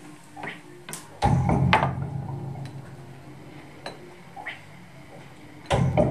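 Live electronic noise set: sparse clanking, knocking hits from a tabletop electronics rig played on a Roland HandSonic percussion pad. Two loud hits, a little over a second in and near the end, each leave a deep hum that dies away over about a second.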